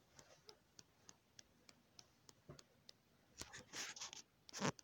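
Faint, regular ticking, about three ticks a second, from a source the uploader could not identify. It is followed near the end by rustling and a bump as the phone is handled.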